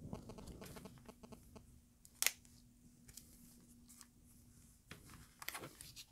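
Faint handling of plastic-wrapped craft packages on a table: an embossing folder in its plastic sleeve being moved and set down among cellophane-wrapped stamp sets. There is one sharp click about two seconds in and a brief rustle near the end.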